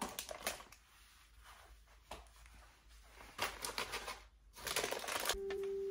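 Crinkling and crackling of a snack bag of coconut chips being torn open and handled, in irregular bursts of crackles. Music starts with a held note near the end.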